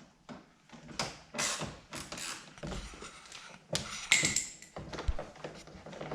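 Hand-tool work on a BMW F20 door's plastic interior trim: a string of clicks, knocks and scrapes as screws come out and the panel is worked loose, with a short squeaky creak about four seconds in.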